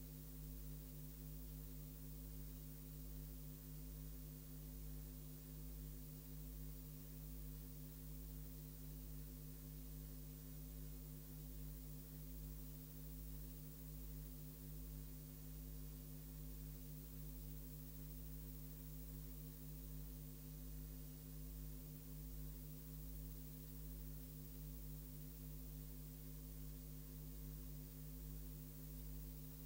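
Steady low electrical hum with several higher overtones over faint hiss, unchanging throughout; no race sound or commentary is heard.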